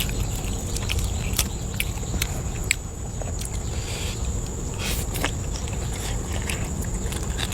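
Eating sounds: irregular clicks of chewing and lip smacks over a steady low rumble, with a steady high whine behind them.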